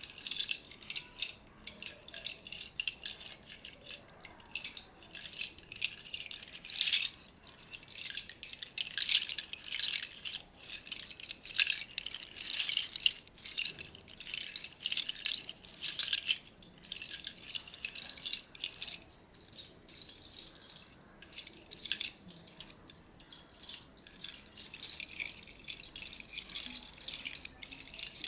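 Hand-held rattle instrument shaken in a sound bath: a continuous dense rustle of many small beads or seeds, swelling and easing unevenly every second or two.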